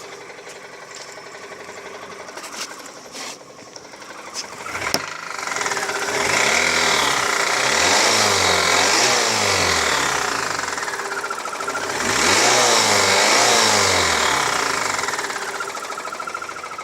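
Mazda 6 2.3-litre inline-four engine idling with a sharp knock, then revved up twice, its pitch rising and falling each time. The knock grows with throttle and sounds like a bicycle ratchet rather than rod bearings or the timing chain; the owner suspects the valvetrain under the valve cover.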